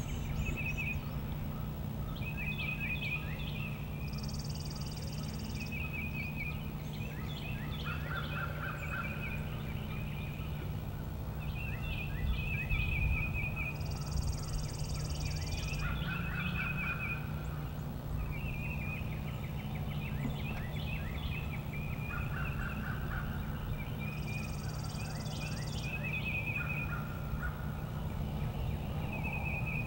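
Outdoor woodland ambience: songbirds chirping in short phrases throughout, with wild turkeys gobbling now and then. A higher buzz lasting about two seconds comes three times, and a steady low hum runs underneath.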